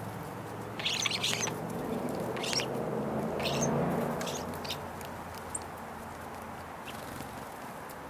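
Birds chirping: a handful of short, high chirps and rattles in the first half, over a low steady rumble.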